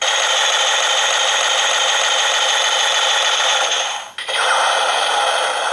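Electronic sound effect playing from the Perfect Zecter toy's built-in speaker in gun mode: a loud, steady, noisy blast that cuts off about four seconds in, then a second one that starts at once and fades near the end.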